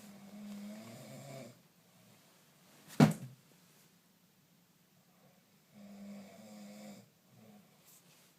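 A person snoring: two long, low snores, one at the start and one about six seconds in. Between them, about three seconds in, a single sharp, loud knock, the loudest sound, after which the snoring carries on.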